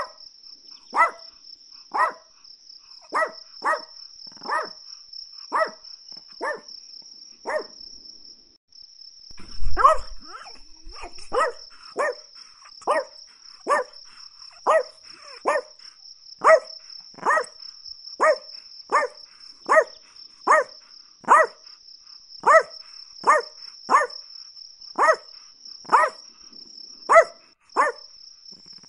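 Chihuahua barking repeatedly in short sharp barks, about one a second, with a pause about eight seconds in. A loud low thump comes about ten seconds in, and a steady high-pitched trill runs under the barks.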